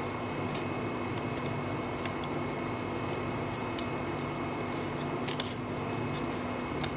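Steel kitchen scissors snipping through king crab shell, a few sharp clicks, the loudest a quick pair about five seconds in, over a steady machine hum.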